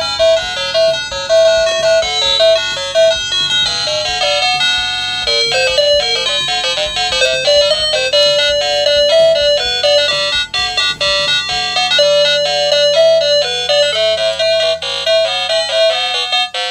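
Toy police car's electronic sound chip playing a tune, a bright melody of short stepped notes.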